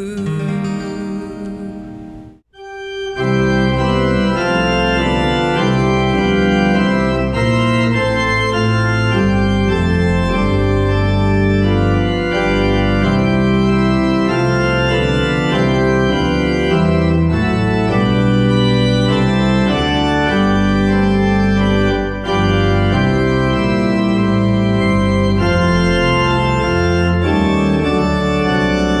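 A song's last acoustic guitar chord dies away, then after a brief break about two and a half seconds in, instrumental closing music of slow, sustained chords plays on.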